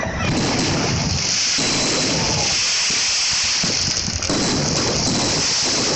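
Fireworks going off without a break: a dense run of overlapping bangs and crackling over a steady hiss.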